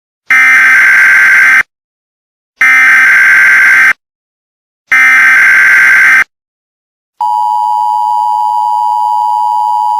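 Emergency Alert System header: three bursts of SAME digital data tones, each just over a second long with about a second between them, then the steady two-tone EAS attention signal starts about seven seconds in.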